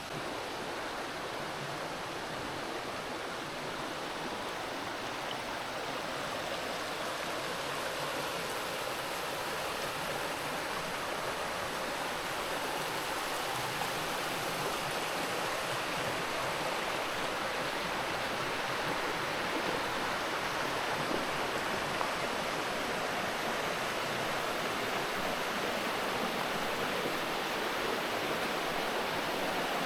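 Creek water rushing over rocks, a steady flowing noise that grows gradually louder.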